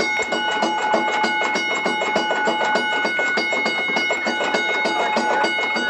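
Streetcar bell ringing continuously: rapid, even strikes over a steady, high ringing tone.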